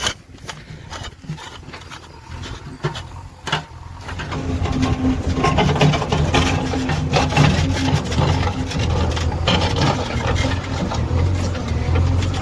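Diesel engine of a JCB 3DX backhoe loader running, with scattered knocks at first, then louder and steadier from about four seconds in.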